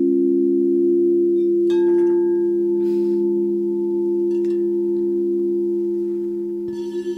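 Crystal singing bowls ringing with several steady, sustained low tones. About two seconds in a light knock sounds and a higher tone joins. Near the end another bowl is struck and its tone wavers, with bright overtones.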